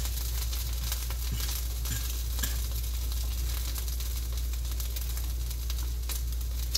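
Mashed potato pancake with onion and garlic frying in a ceramic-coated skillet: a steady sizzle with many small crackling pops, over a constant low hum.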